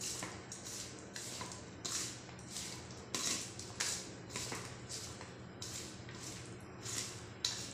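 A hand mixing chopped boiled potato, onion, tomato and coriander with chutney in a stainless steel plate: soft squishing, rustling strokes about twice a second, over a faint steady hum.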